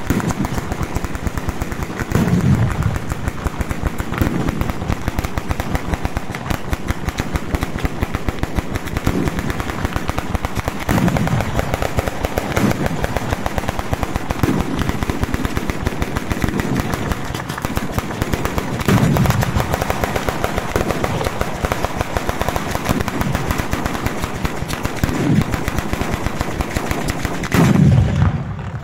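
Bolognese-style ground battery fireworks firing: a rapid, unbroken barrage of firecracker reports, with heavier low booms every few seconds and a louder burst near the end.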